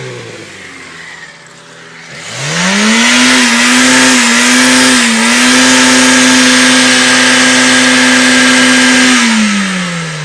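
Peugeot 104's four-cylinder engine idling, then revved hard about two seconds in and held at high revs for some seven seconds, with one short dip, before the revs fall away near the end.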